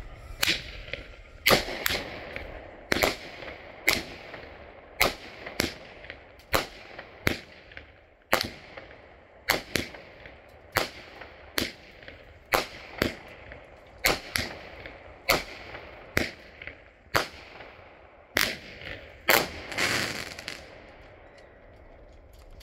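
All Star Fireworks 'On Star' 200-gram consumer fireworks cake firing shot after shot, roughly one or two sharp bangs a second, with some crackle between them. About thirty shots in all, ending with a longer crackle before it goes quiet near the end.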